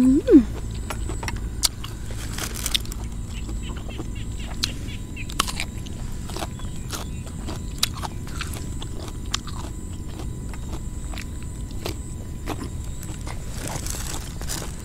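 Close-up eating sounds: chewing and crunching raw vegetables, with many small irregular mouth clicks and smacks over a steady low rumble. A short rising hum at the very start.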